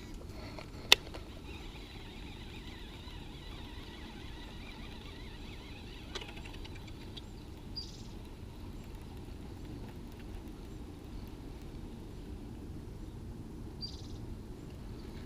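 Steady low outdoor background noise beside a river, with one sharp click about a second in and two brief high chirps about six seconds apart.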